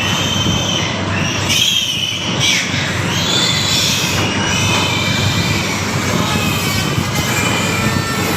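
Piglets squealing, high-pitched and continuous, as they are handled for teeth clipping.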